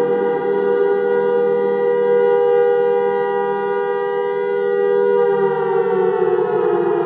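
Air raid siren sounding a loud, steady note. About five seconds in, its pitch begins to fall slowly.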